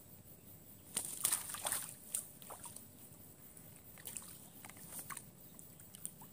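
Shallow pond water sloshing and splashing in short bursts as hands and a mesh keep net work at the water's edge. The biggest splashes come about a second in, with smaller ones scattered after.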